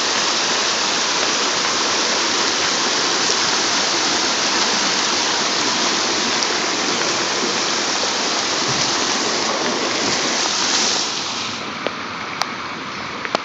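Muddy floodwater rushing across a street in a cloudburst, with heavy rain: a steady, loud rush of water that eases somewhat about eleven seconds in, with a couple of faint clicks near the end.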